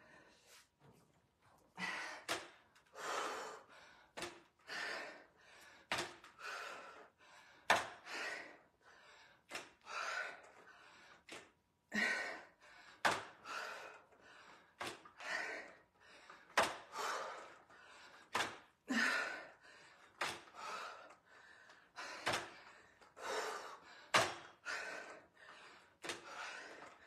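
A woman breathing hard in sharp, gasping exhales, roughly one a second, as she works through dumbbell sumo deadlift high pulls, with a few dull thunks among them.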